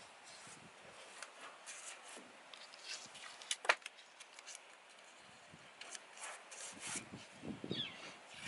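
Blue painter's tape being pulled from the roll and rubbed down by hand around a pickup's taillight: faint, scattered rasping and rubbing, with one sharp click about three and a half seconds in.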